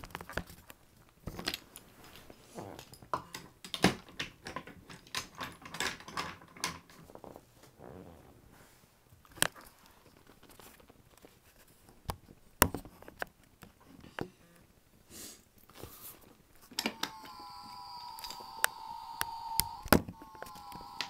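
Handling noise: scattered sharp clicks and knocks as the camera is moved about over a wooden toy railway layout. Near the end a steady high whine starts, with a few clicks over it.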